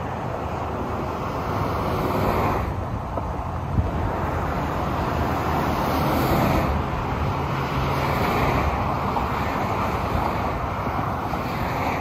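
Expressway traffic: cars passing on a divided highway, a steady rush of tyre and engine noise that swells as vehicles go by. A brief sharp click a little under four seconds in.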